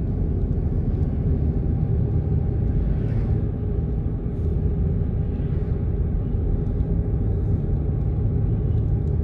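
Steady low rumble of a car driving, with engine and road noise heard from inside the cabin.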